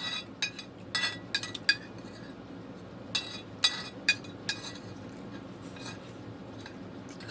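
Cutlery clinking and scraping against a plate during eating: a dozen or so sharp, separate clinks at irregular intervals.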